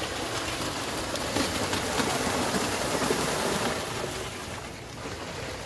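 A pair of racing bulls and their jockey splashing through a flooded, muddy rice paddy: a steady wash of splashing noise that eases a little near the end.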